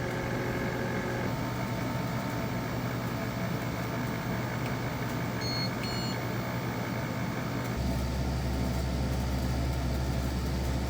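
EcoFlow Wave portable air conditioner running in cooling mode with its compressor on and its fan at full speed: a steady hum and whoosh of air. A few faint, short high beeps sound around the middle, and a deeper low hum comes in about eight seconds in.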